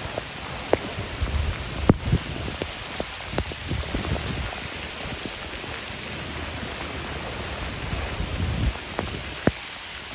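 Heavy rain pouring down onto a flooded street: a steady, even hiss with scattered sharp ticks of drops striking close by.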